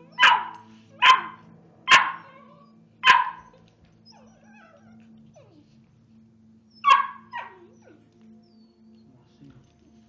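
A dog barking in play: four sharp barks about a second apart, then after a pause of nearly four seconds, two more in quick succession.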